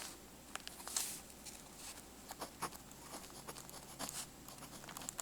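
Pentel Vicuna BXW1375 mechanical pencil working on paper: faint, irregular short scratchy strokes.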